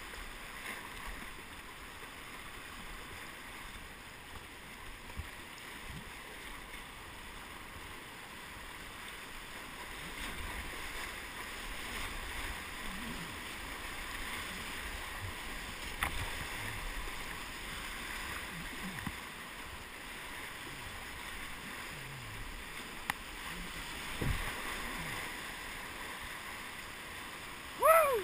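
River rapids rushing and splashing around a kayak hull, with a few sharp knocks. Near the end there is a short, loud sound that falls in pitch.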